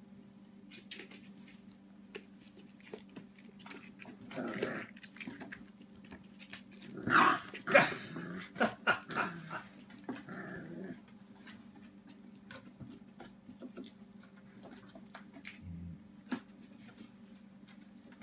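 Puppies playing on a plywood ramp: claws tapping and scrabbling on the wood, with a loud burst of puppy play growls and yelps about seven seconds in and smaller growls around it. A steady low hum sits underneath.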